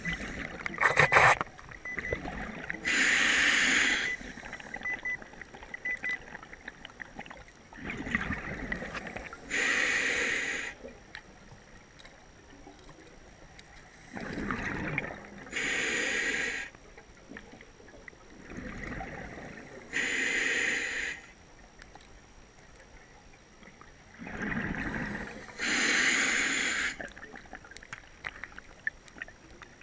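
Scuba regulator breathing underwater: a hissing inhale, then a burst of exhaled bubbles, in a steady cycle of about one breath every five to six seconds, five breaths in all.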